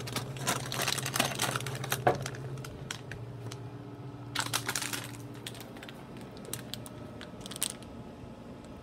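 Snack taken out of the delivery bin of a Wittern U-Select-It vending machine: a quick run of small clicks and rattles from the bin's flap door and the plastic snack bag, over a low hum that stops about three seconds in. Then a brief crinkle of the bag in the hand near the middle, and a short rustle near the end.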